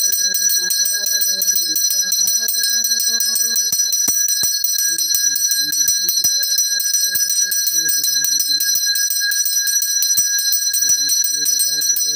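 Temple hand bell rung rapidly and continuously during puja, its ringing steady throughout. Under it a man's voice chants in long held notes, pausing twice.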